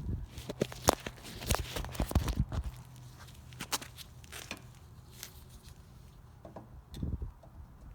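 Scattered clicks and knocks of hands working the fog light housing and its screws, busiest in the first three seconds with a few more about seven seconds in.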